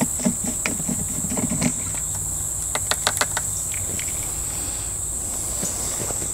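Steady high-pitched insect drone, with a quick run of sharp clicks about three seconds in as the plastic fuel cap is twisted off a Honda generator.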